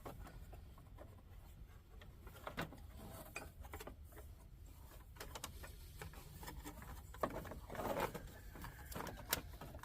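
Faint scattered clicks and taps from hand work in an engine bay, with a short rustling scrape about eight seconds in.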